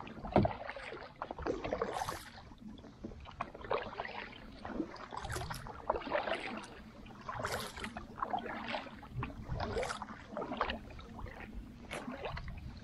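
Kayak paddle strokes swishing and splashing through the water, a stroke about every one and a half to two seconds, with a sharp knock just after the start.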